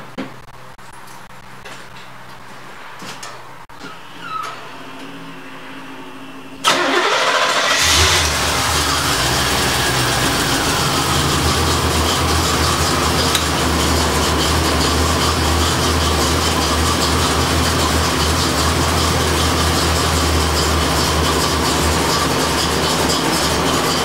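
1985 Corvette's 5.7-litre tuned-port-injected V8 starting about seven seconds in after a brief crank, then running at a steady idle. A few faint clicks come before the start.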